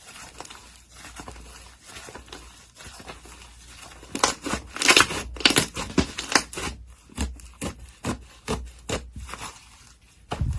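Slime being squeezed and poked by hand, making sticky clicks and pops. The clicks are sparse and quiet at first, then come fast and louder from about four seconds in.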